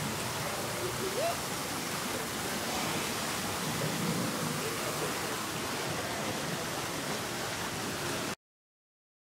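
Steady rushing of water in a boat ride's water channel, with faint voices in it; it cuts off suddenly near the end.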